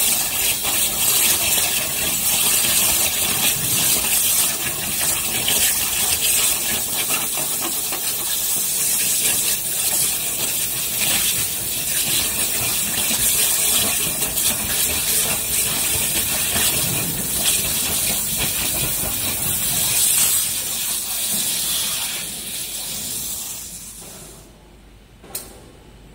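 High-pressure jet of a five-axis waterjet cutter making a loud, steady hiss as it cuts through a stone slab. The hiss fades and stops near the end, and a single sharp click follows.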